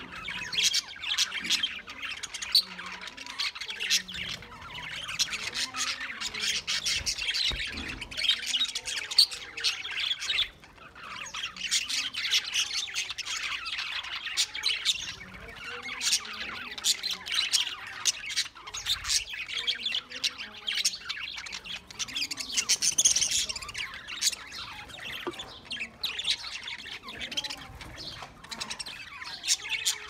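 A flock of budgerigars chattering, chirping and squawking all at once in a dense, continuous mix of short calls, with a brief lull about ten seconds in.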